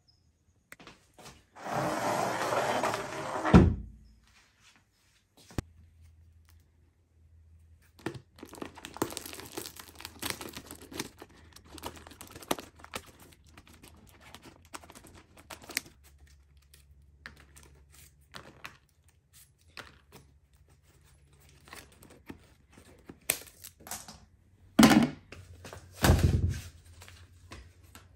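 Plastic wrap being snipped with scissors and torn off a bundle of flat cardboard mailer boxes, crinkling and tearing, with small clicks and cardboard knocks as the boxes are handled. A loud rustle ending in a thump near the start, and two more loud thumps a few seconds before the end.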